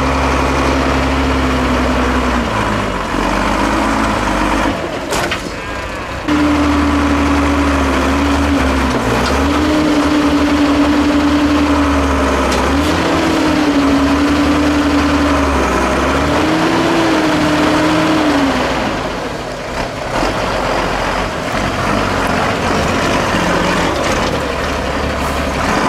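Diesel engine of a 6x6 Mercedes-Benz off-road trial truck working hard at low speed, its pitch swelling and sagging again and again as the throttle is worked over the obstacles. There is an abrupt jump in the sound about six seconds in, and the engine note drops back near the end.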